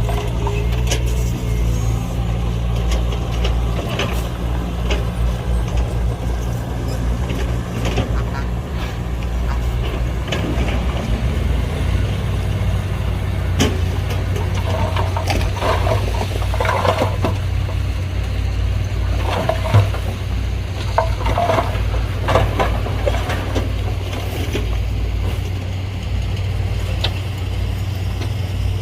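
Diesel engine of heavy earthmoving machinery running steadily. Short higher-pitched sounds come and go about halfway through.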